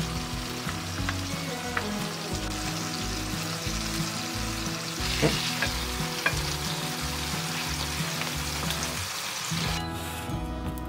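Herring fillets sizzling steadily as they fry in a pan, with a couple of light clicks in the middle. The sizzle drops away near the end.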